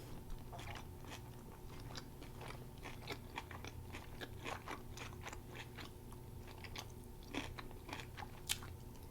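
Close-miked chewing of a plant-based burger with fresh vegetables: soft crunching and wet mouth clicks at an uneven pace.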